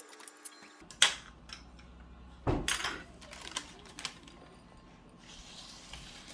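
A few clatters and knocks of dishes and kitchen utensils; the loudest is a sharp knock about a second in, with a heavier clunk about two and a half seconds in.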